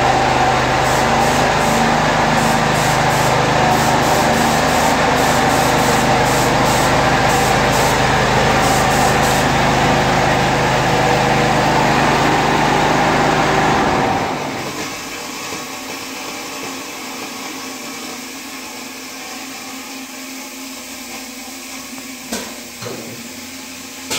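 Air compressor running steadily, then cutting out abruptly about fourteen seconds in, leaving quieter room noise with a couple of light knocks near the end.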